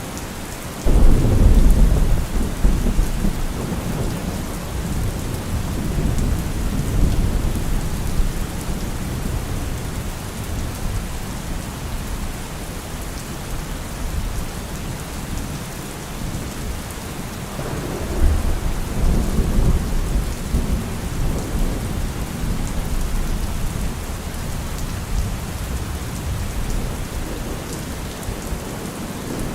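Steady rain with thunder. A sudden loud rumble starts about a second in and rolls on for several seconds, and a second rumble comes a little past the middle.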